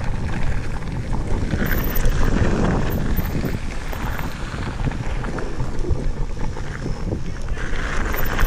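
Wind rushing over an action camera's microphone as a mountain bike descends, with tyres rolling over gravel and small stones and the bike clattering over the rough ground.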